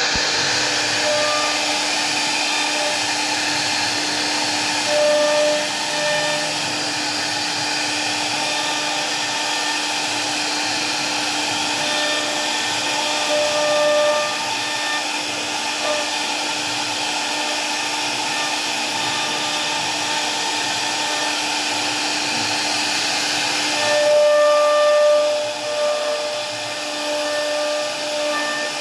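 CNC router spindle running steadily as the bit cuts into wood, a continuous whirring hum with a tone that shifts now and then as the cut changes.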